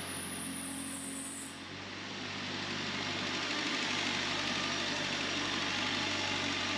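Ford Ranger's 2.3-litre Mazda-built inline-four engine idling steadily. It gets louder between about two and four seconds in as the open engine bay comes close.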